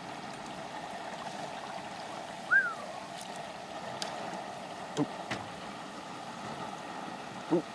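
Hot oil bubbling and hissing steadily in a propane turkey fryer as a whole fried bone-in rib roast is lifted out on its metal hook. A short high chirp comes about two and a half seconds in, and a couple of light clicks follow.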